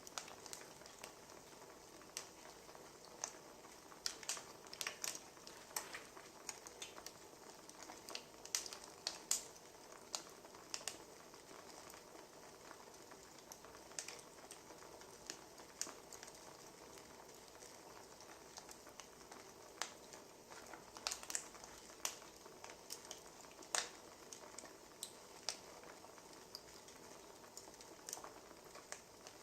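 Wood fire crackling: irregular sharp pops and snaps, a few of them louder, over a low steady hiss.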